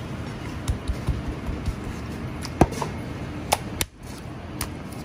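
Chinese cleaver knocking on a plastic cutting board as raw chicken thighs are trimmed and cut: a string of irregular sharp knocks and dull thuds over a steady kitchen background rumble.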